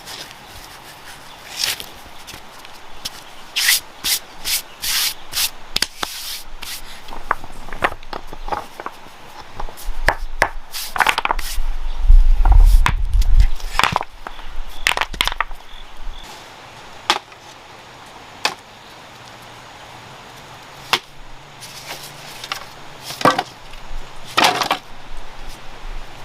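Irregular knocks, clicks and scrapes of hands-on work with wood, with a low rumble about halfway through that is the loudest moment.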